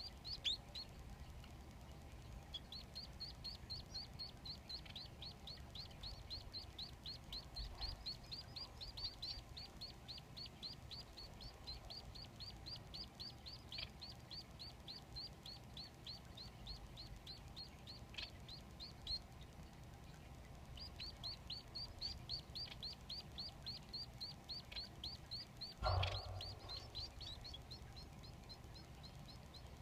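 Society finch nestlings begging to be fed: long runs of rapid, high, downward-sliding cheeps, several a second, with a short break about two-thirds of the way through. A dull thump near the end.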